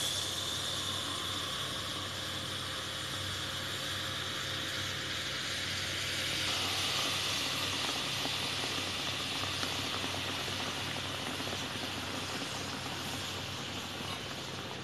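Chai poured into a flame-heated clay kulhad sizzling and boiling over into a steel bowl: a steady hiss that eases off toward the end.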